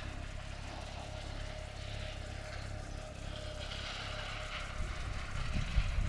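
Wind buffeting the microphone as a low, fluttering rumble that gusts harder near the end, with a faint steady hum underneath.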